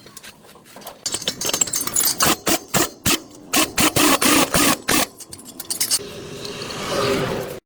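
Workshop repair noise: a quick, irregular run of sharp knocks and clatter lasting about four seconds, then a swelling rushing noise that cuts off suddenly near the end.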